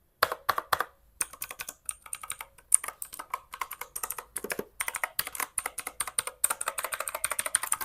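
Typing on an Ant Esports MK3400 Pro V3 mechanical keyboard with clicky Outemu Blue switches, recorded close up: irregular sharp key clicks that quicken into a rapid, dense flurry of keystrokes near the end.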